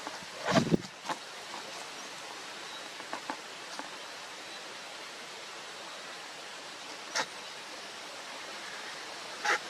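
Steady outdoor hiss with a few brief rustles or knocks, the strongest about half a second in and another near the end.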